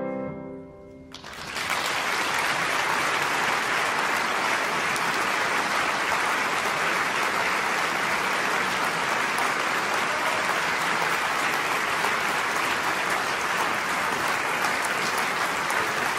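The last chord on a grand piano dies away, then about a second and a half in an audience breaks into steady applause.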